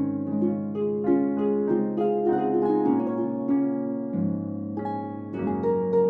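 Instrumental background music of plucked-string notes, played as a flowing melody over held lower tones.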